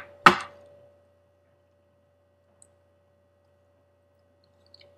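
One sharp knock about a third of a second in, then near silence with a faint steady hum and two tiny clicks.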